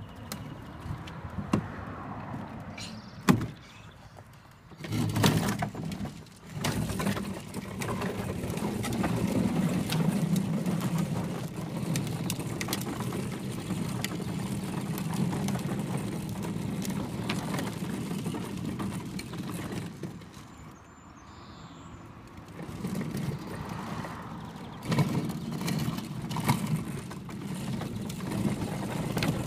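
Hard plastic wheels of a Little Tikes Cozy Coupe ride-on toy car rumbling over rough tarmac as it is pushed along, with scattered knocks and clicks. The rolling starts about five seconds in, stops for a couple of seconds about two-thirds of the way through, then goes on again.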